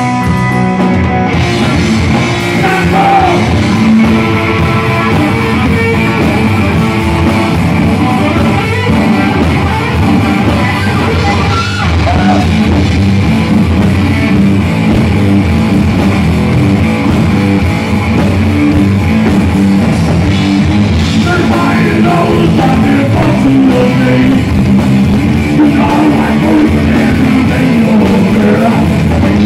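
A hard rock band playing live: distorted electric guitar, bass guitar and drum kit. The guitar plays alone briefly, then the drums and cymbals come in with the full band about a second in.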